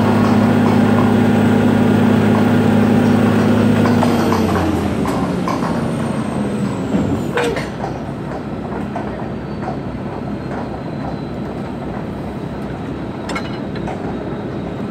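Workover rig's engine running hard with a steady drone, easing off about four to five seconds in and then running more quietly. There is a metal clank about halfway through and a couple of sharp clinks later from the rig's steel.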